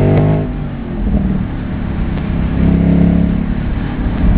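Mercedes-Benz SL AMG engine being revved: the revs fall away right at the start, settle lower, then climb again about two and a half seconds in and hold.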